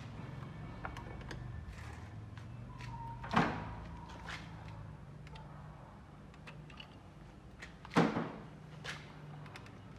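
Two sharp bangs about four and a half seconds apart, each with a brief ring, over a low steady hum and scattered light clicks of workshop handling.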